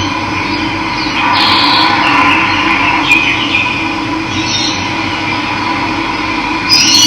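Running water rushing steadily, with birds chirping over it; one call rises in pitch near the end.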